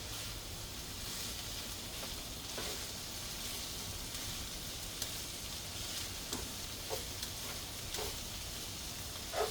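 Browned ground beef sizzling in a pan as taco seasoning is stirred through it, with a spoon now and then clicking and scraping against the pan.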